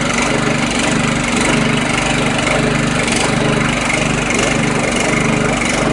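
6.5 horsepower single-cylinder small engine running steadily with a slow, regular pulse, pulled down by the load of the belt-driven 165 amp Delco alternator as the inverter powers a 750 watt block heater.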